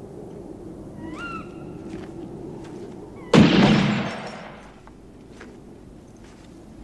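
A single loud bang about three seconds in, cutting in sharply and dying away over about a second, over a steady low drone. A short high chirp sounds about a second in.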